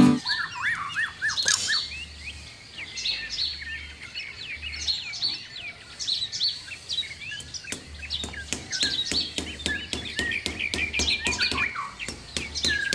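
Songbirds chirping and twittering, many short, quick chirps one after another. About halfway through, a fast, even run of sharp ticks joins in.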